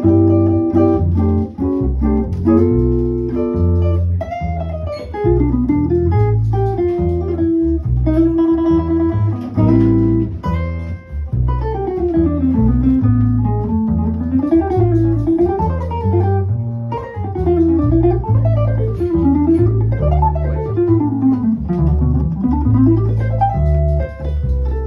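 Archtop jazz guitar (a Borys B120 played through a Henriksen Blu amplifier) and plucked upright double bass playing a bossa nova. The guitar holds chords for the first few seconds, then plays quick single-note runs that rise and fall over the bass line.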